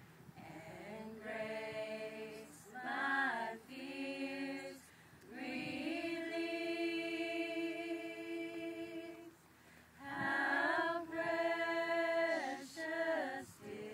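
A small women's choir singing a worship song a cappella, in phrases of held chords with short breaks between them. The longest chord is held for nearly four seconds in the middle.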